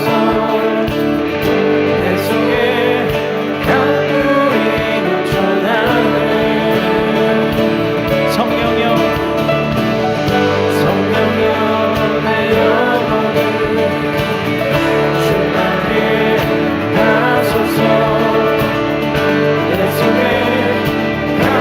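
Worship music from a church band, with held chords throughout.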